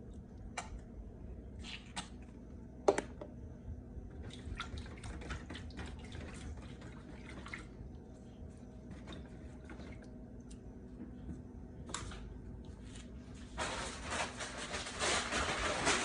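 Water with hair dye being stirred and splashed in a foil pan: scattered drips, small splashes and clicks, one sharp knock about three seconds in, and a louder, busier stretch of sloshing near the end.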